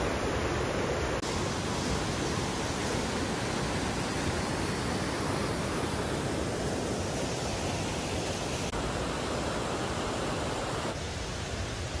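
Steady rushing of a river's white water pouring over rocks, a continuous even hiss. It turns somewhat quieter about a second before the end.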